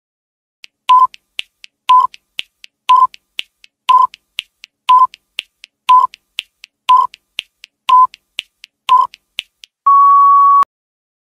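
Countdown timer sound effect: a quick ticking with a loud beep once a second, then a longer beep as the count reaches zero.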